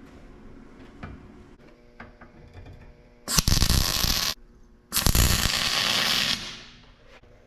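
Electric welding on steel in two bursts, each a second or two long: a loud, harsh hiss that switches on and off sharply. The second burst is longer and trails away at the end.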